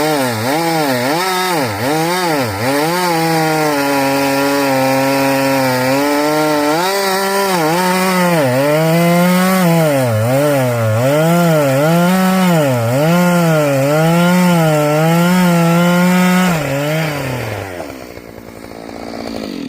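Chainsaw cutting up a downed tree for firewood, the engine's pitch dipping and recovering about once a second, with a few stretches held steady at high revs. Near the end the engine drops in pitch and fades away.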